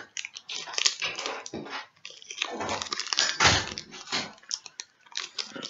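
Pokémon trading cards and their foil booster-pack wrapper being handled: irregular crinkling and rustling, loudest about three and a half seconds in.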